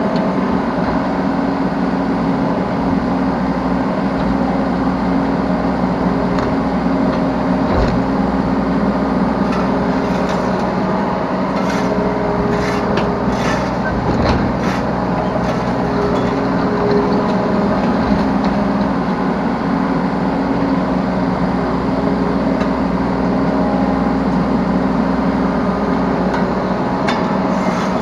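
Yanmar B3 Sigma mini excavator's diesel engine running steadily under working load, heard from the operator's seat. A few sharp knocks and clatters come in the middle stretch.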